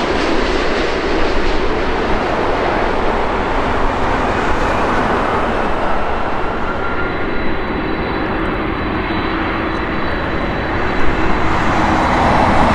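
Airbus A380-861 on short final and landing, its four GP7200 turbofan engines making a steady, loud jet rumble and hiss that swells a little near the end.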